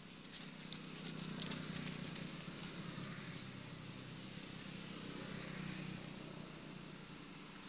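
Steady outdoor background noise with a low hum that swells about a second in and slowly eases off, with a few faint ticks in the first second.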